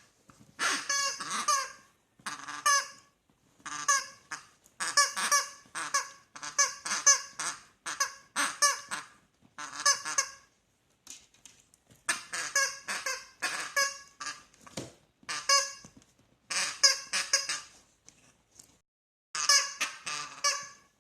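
Rubber chicken squeaky toy honking over and over as a dachshund puppy bites and squeezes it. The squawks come in irregular runs, with a couple of short pauses.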